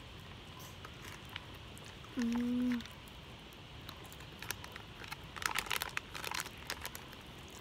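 Crinkling and crackling of a popping-candy packet being handled, in a burst of sharp crackles past the middle. About two seconds in there is one short hummed note.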